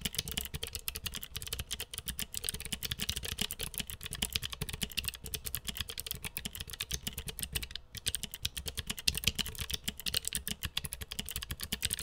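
Fast typing on a wireless Corne split keyboard with low-profile Kailh Choc White clicky switches: a dense, steady stream of key clicks with a brief break about eight seconds in.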